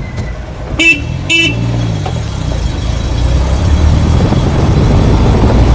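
Two short toots of a vehicle horn about a second in, followed by the steady engine and road noise of a moving vehicle, heard from inside it and growing louder.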